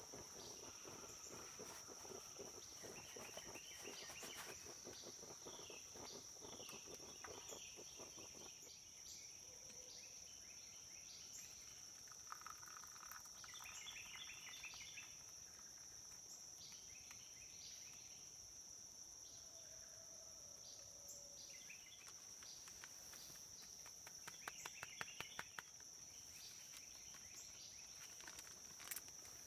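Faint outdoor insect drone: crickets or similar insects holding one steady, unbroken high-pitched tone, with short chirping phrases breaking in a few times. There are soft clicks and rustling in the first several seconds.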